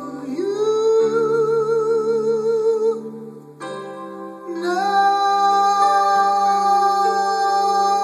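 A worship song with a singer holding a long note with vibrato over its accompaniment. After a brief dip, the accompaniment settles on a steady held chord from about five seconds in.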